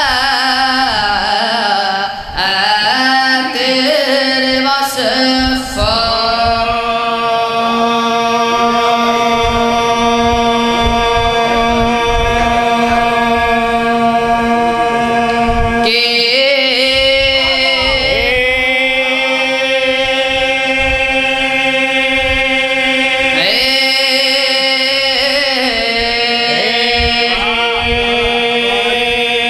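A boy's voice chanting a religious recitation over a PA, holding long notes with sliding melodic turns between them, one held note lasting about ten seconds.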